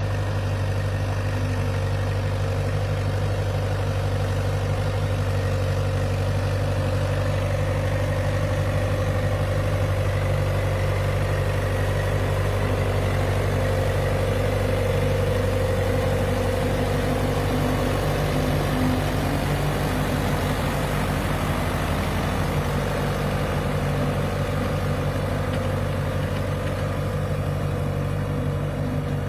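Fiat 850 DT Super tractor's diesel engine running steadily under load while pulling a plough.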